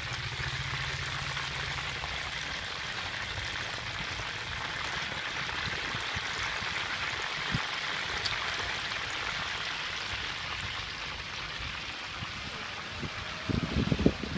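Whole chickens deep-frying in a wok of hot oil, a steady sizzle. A few loud knocks come near the end.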